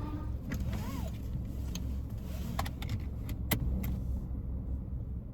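Steady low rumble of a car, with a few sharp light clicks and taps, the loudest about three and a half seconds in, and a brief rising-then-falling tone about a second in.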